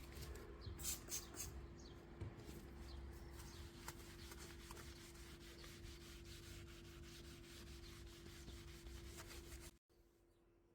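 A cloth rubbing and wiping across window glass in scratchy strokes with small clicks, over a steady low hum. It cuts off abruptly near the end.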